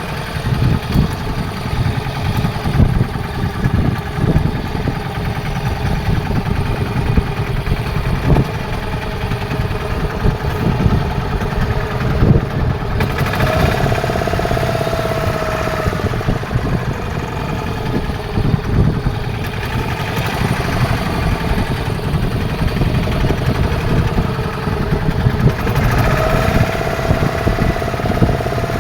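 A boat engine running steadily, with a faint higher tone coming in twice.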